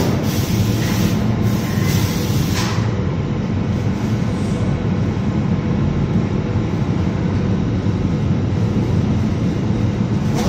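Steady din of flour mill plant machinery running: a loud, even low rumble, with a few brief bursts of hiss in the first three seconds.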